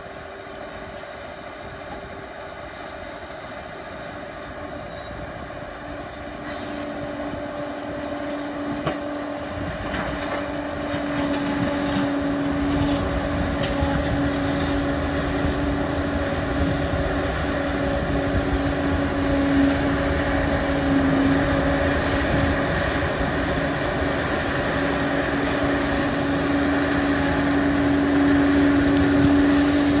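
Liebherr PR 746 crawler dozer's diesel engine running with a steady droning tone, growing louder about six to twelve seconds in as it comes under more power, then holding there.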